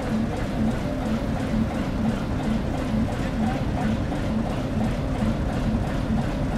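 Roundhouse turntable slowly turning with the Em-class steam locomotive 710-46 on it: a steady mechanical rumble with a regular pulse about three times a second.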